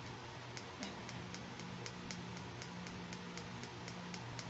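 Small plastic toy doctor caliper worked by hand, giving a run of even plastic clicks at about four a second, with a faint steady hum underneath.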